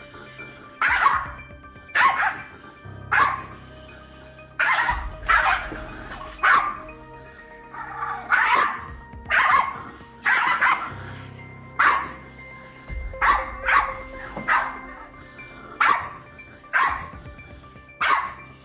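Shiba Inu barking aggressively, short sharp barks about once a second, in attack mode. Background music with held chords runs underneath.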